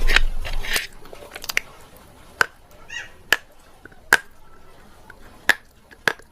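Close-up eating crunches: a loud crunchy bite at the start, then chewing with sharp, crisp cracks about once a second.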